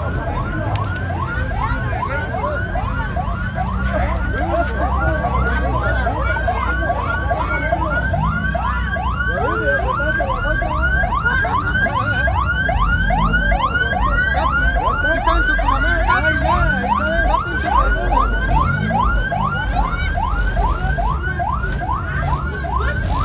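Electronic police-style siren on a parade car, running in a fast yelp: rising sweeps repeat about three times a second. A low, steady rumble runs underneath.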